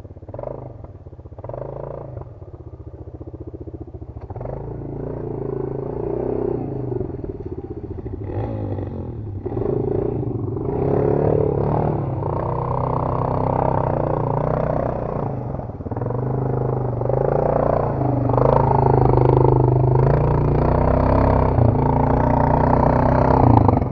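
Off-road motorcycle engine revving up and down repeatedly, growing steadily louder as it comes closer.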